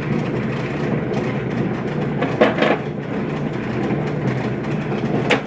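Lapidary polishing machine running steadily: a motor hum under a constant noisy rattle. A couple of sharp knocks come about halfway, and a click near the end.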